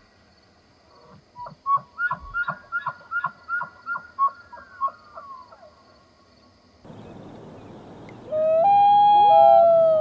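A bull elk gives a rapid series of short grunting chuckles, about three a second, fading out after a few seconds. Near the end a common loon gives a long wail, the loudest sound here: a held note that steps down to a lower one.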